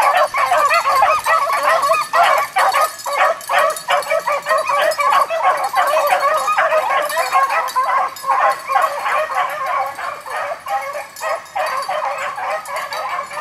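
A pack of beagles baying together on a rabbit hunt, many hound voices overlapping without a break, easing off a little over the last few seconds.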